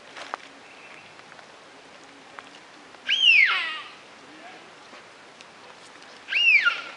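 A goat kid bleating twice, each a short high call that rises and falls in pitch, about three seconds in and again near the end.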